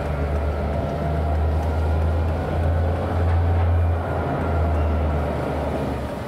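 Diesel switching locomotive's engine running with a deep, steady rumble that swells through the middle and eases near the end.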